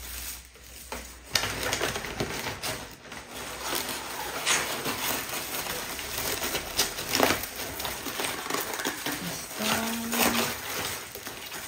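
Brown honeycomb kraft paper packing wrap crinkling and rustling as it is pulled out of a cardboard box and unwrapped by hand, with irregular crackles throughout.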